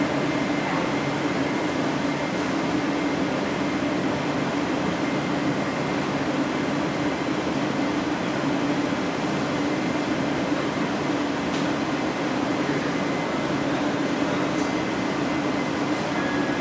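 Steady roar of glassblowing hot-shop equipment: the gas-fired glory holes and furnace burning, with their blowers and fans running.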